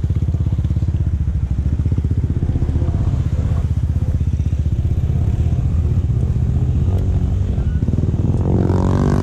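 Snorkeled ATV engine idling steadily, with an even, rapid low pulse from the exhaust while the quad stands in deep water.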